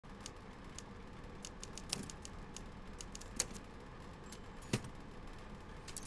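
Faint, irregular clicks and taps over a low steady hum, with three louder clicks about two, three and a half and nearly five seconds in.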